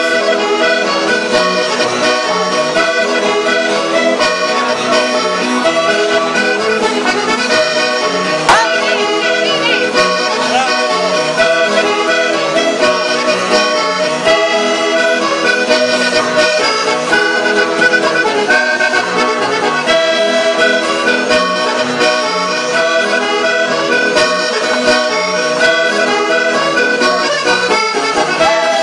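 Accordion playing Sardinian folk dance music for a round dance, with a steady repeating rhythm.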